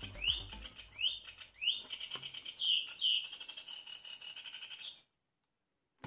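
Recorded bird song played from a children's bird-sound book through its small speaker: a steady fast pulsing call with about five rising whistled notes over it. It cuts off suddenly about five seconds in.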